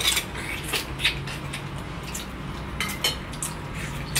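Clinks and taps of dishes and eating utensils during a meal: a handful of separate sharp knocks spread across the few seconds, over a low steady hum.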